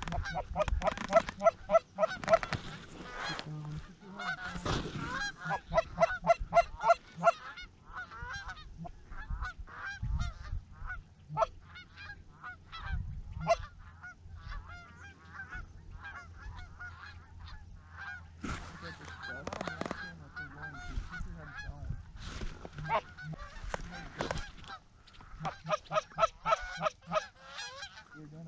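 Canada goose honks and clucks, many short calls in quick succession, coming in several loud bursts with sparser calling between.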